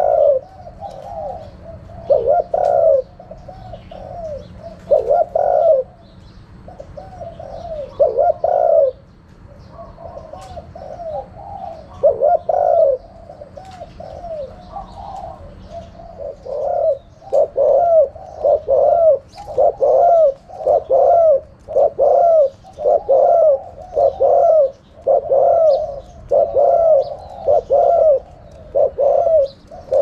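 Spotted dove cooing: spaced phrases of arched coos at first, then from about halfway a long, even run of coos at roughly one and a half a second.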